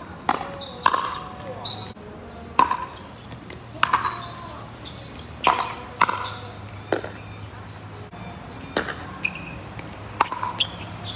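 Pickleball rally: solid paddles hitting a hollow plastic pickleball with sharp pops, and the ball bouncing on the hard court, about one knock a second at an uneven pace.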